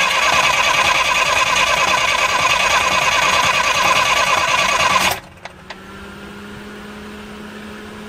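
Perkins 4.108 four-cylinder diesel turned over by its electric starter in a fast, even cranking rhythm without firing. It is being cranked cold to build oil pressure, with the injector pump held off until pressure comes up. The cranking stops suddenly about five seconds in, leaving a faint steady hum.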